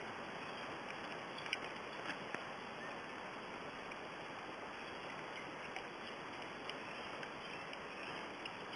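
Steady rushing background noise with a few faint, scattered clicks.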